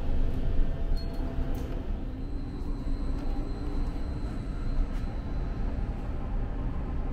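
Steady low rumble and hum inside a passenger ferry, from the ship's engines and ventilation.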